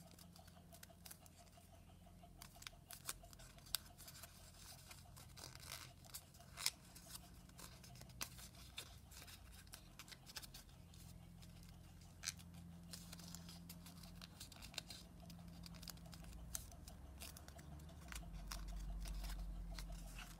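Origami paper being folded and creased by hand: faint rustling with many short, crisp crackles and clicks over a steady low hum, and a low rumble that swells near the end.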